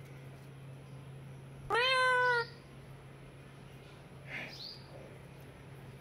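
Indian ringneck parakeet giving one loud, drawn-out call of under a second, then a shorter, fainter call about two seconds later.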